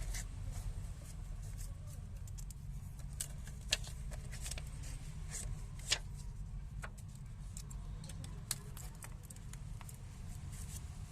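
Scattered small sharp clicks and taps of hand tools working on a Samsung Galaxy A50 phone, the loudest about four and six seconds in, over a steady low hum.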